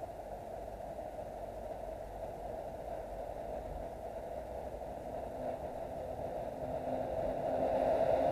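Steady hiss-like noise that grows slowly louder toward the end, with no bird calls.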